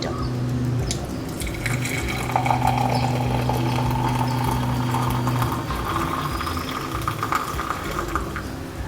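Hot homemade ginger-lemon drink poured through a strainer into a cup, liquid trickling and splashing steadily, its pitch rising as the cup fills.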